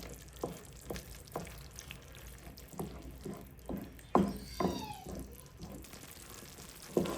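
Spoon knocking and scraping in a pot of queso as it is stirred, a tap about every half second. About four and a half seconds in comes a short high cry that falls in pitch.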